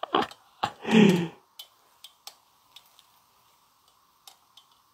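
A short wordless vocal sound, then scattered light clicks and taps from a phone being handled and adjusted on a selfie-stick tripod.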